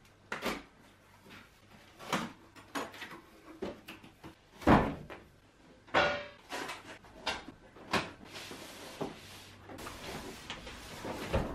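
A new coffee machine being unboxed: cardboard and packaging handled, with a series of knocks and thumps, the loudest about five seconds in and another just before the end. Packaging rustles for the last few seconds.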